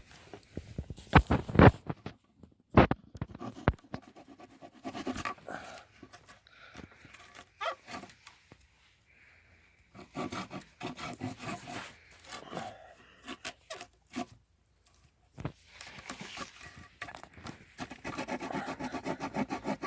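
Small folding saw blade of a multi-tool cutting into an old piece of elm wood. A few sharp knocks and clicks come first, then scraping, and near the end a fast run of rasping back-and-forth saw strokes.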